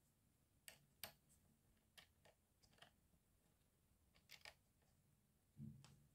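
Faint scattered clicks and taps of a small metal screw and wing nut being fitted by hand to a wooden embroidery scroll frame, about seven in all, with a brief soft low sound near the end.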